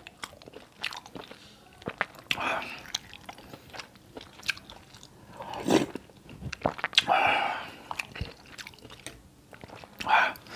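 Close-miked chewing and wet lip-smacking of a person eating a mouthful of ketupat sayur with soft beef semur, with short sharp clicks scattered throughout. A metal spoon clinks and scrapes against the glass bowl.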